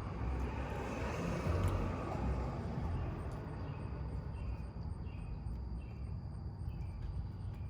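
Outdoor background sound: a vehicle passing in the first few seconds, over a low traffic rumble, with a steady high insect tone and faint insect chirps repeating about every half second.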